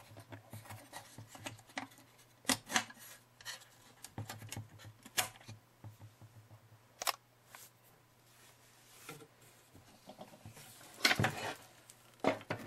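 Handling noises from a vintage Singer R-3 upright vacuum cleaner: scattered clicks and knocks of its parts being moved and fitted, with a quick run of louder knocks about eleven seconds in. The motor is not running.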